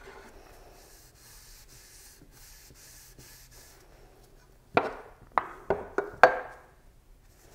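Faint rustling of gloved hands handling a cloth rag. About five seconds in comes a quick run of five sharp clicks and knocks as a metal finish can is picked up off the wooden bench and tipped onto the rag.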